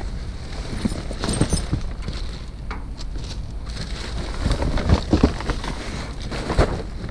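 Someone rummaging through trash in a dumpster: irregular knocks, clunks and rustles as bags and items are moved about, with a steady low rumble underneath.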